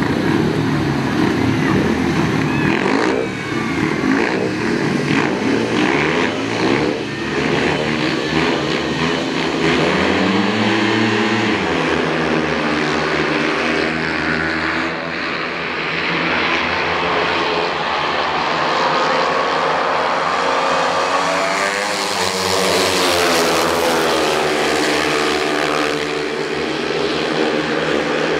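Speedway motorcycles' single-cylinder engines racing at full throttle. A dense, loud blare comes first as the pack leaves the start, and later the bikes sweep past twice, the engine note rising and falling as they go by.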